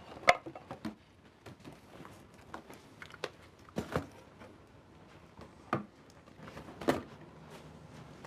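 A few sharp knocks and clunks of office items being handled and set into a cardboard box, the loudest just after the start, with faint room noise between them.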